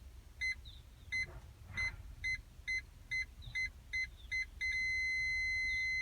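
Aftermarket parking proximity sensor alarm beeping at a high pitch. The beeps come quicker and quicker, then merge into one continuous tone about four and a half seconds in, the signal that an obstacle is very close behind the car.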